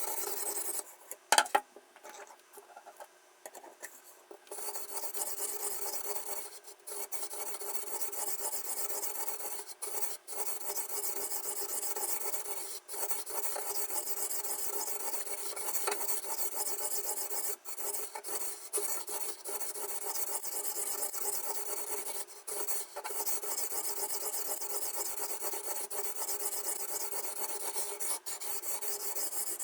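Guided knife sharpener's abrasive stone rasping back and forth along a kitchen knife blade in quick, continuous strokes. A sharp knock comes about a second and a half in, inside a short pause, before the strokes resume.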